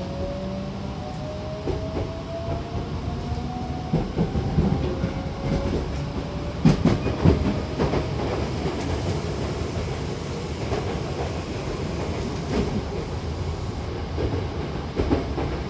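Hankyu electric train under way: its traction motors whine in tones that climb in pitch as it gathers speed over the first few seconds. Then a steady rumble follows, with a cluster of wheel clacks over rail joints after about six seconds and more clacks later.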